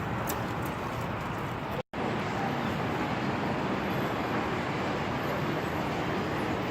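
Steady city background noise, like passing traffic, with a split-second dropout about two seconds in where the recording is cut.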